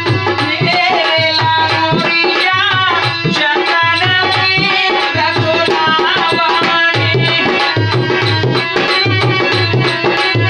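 Live Rajasthani languriya folk song: a man singing with a harmonium over a dholak drum beating a steady rhythm. The voice drops out about six seconds in, leaving the harmonium and dholak playing on.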